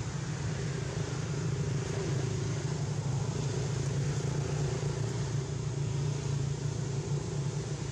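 A steady low mechanical rumble with a constant hiss over it, like an engine running, with no change in pitch or level.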